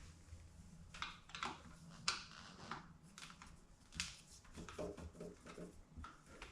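Faint, scattered clicks and taps of a screwdriver and the plastic handlebar switch housing as its Phillips screws are backed out, over a low steady hum.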